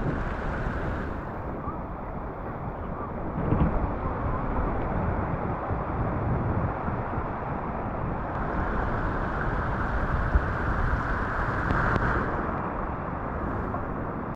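Wind on the microphone at a stream mouth by the sea, over the wash of water: a steady rushing noise that swells in gusts, most strongly for a few seconds past the middle.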